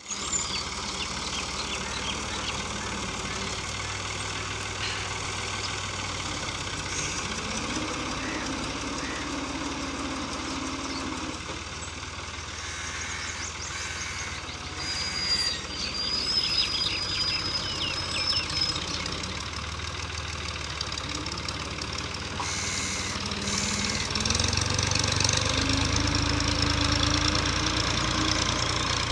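Fiat 480 tractor's three-cylinder diesel engine running steadily under load as it pulls a cultivator through worked soil, growing louder near the end as it comes closer.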